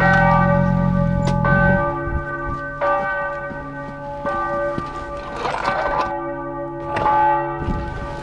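Bells struck in a slow, even rhythm, a new stroke about every one and a half seconds, each ringing on into the next. A low hum sounds beneath them for the first two seconds.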